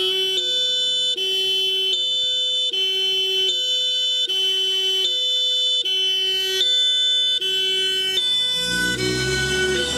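German two-tone fire-engine siren (Martinshorn) on a volunteer brigade's TSF, alternating evenly between a higher and a lower tone, each held about three-quarters of a second. Near the end, low engine and road noise swell up under it as the vehicle comes close.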